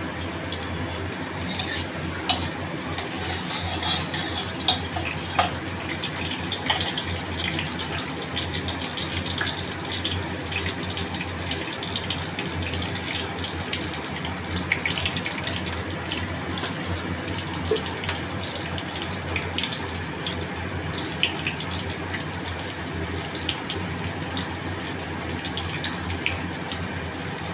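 Mustard oil heating in a metal wok with a dried red chilli and bay leaves, sizzling steadily, with a few sharp pops and clicks in the first several seconds.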